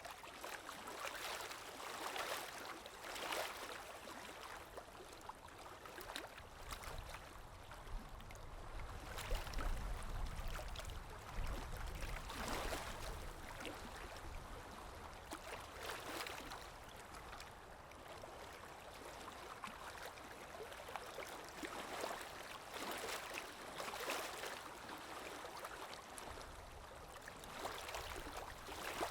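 Small sea waves lapping and splashing, with a steady wash of water and a splash every two to three seconds. There is a low rumble from about eight to thirteen seconds in.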